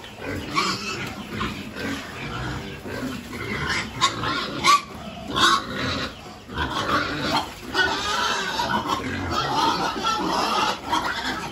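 A group of pigs grunting and eating at a feeding trough. A few short, sharp noises stand out about four to five and a half seconds in.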